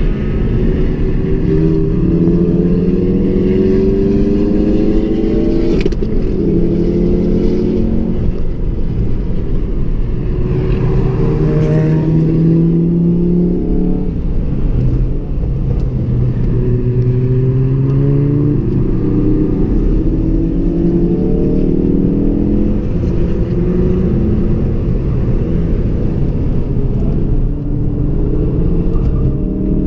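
Ford Focus RS's turbocharged 2.3-litre four-cylinder engine heard from inside the cabin under hard acceleration on a race track, its pitch climbing again and again and dropping back at each gear change or lift for a corner.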